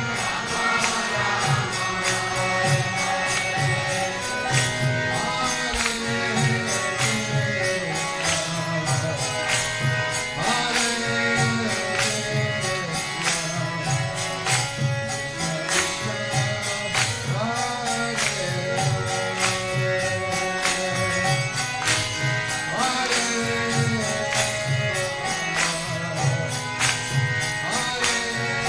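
Background devotional music: voices singing a mantra over a steady beat of sharp, jingling percussion strikes and a pulsing low accompaniment.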